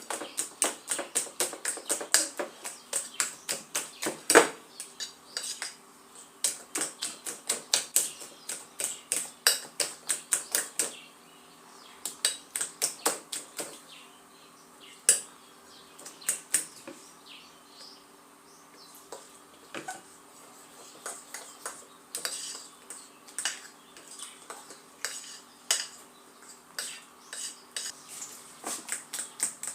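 A fork beating thick flour batter in a bowl to smooth out lumps: quick clicking and scraping of the fork against the bowl, about four strokes a second, slowing to scattered strokes in the middle before picking up again near the end.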